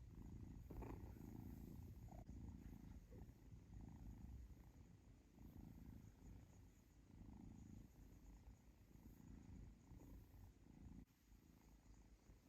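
Kitten purring, a low steady rumble that swells and eases with each breath.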